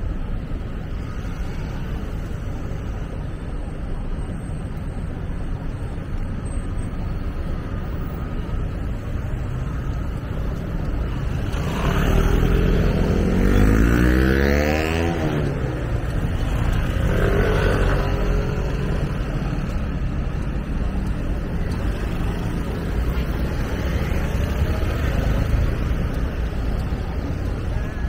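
City street traffic: a steady low rumble of vehicles. About twelve seconds in a motor vehicle passes close, its engine pitch gliding up and down, and another passes a few seconds later.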